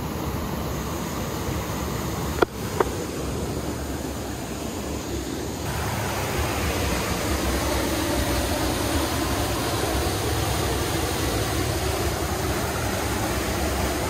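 Fast stream water rushing steadily in white-water rapids over rocks and a broken concrete-and-timber structure in the streambed. Two sharp clicks come close together about two and a half seconds in.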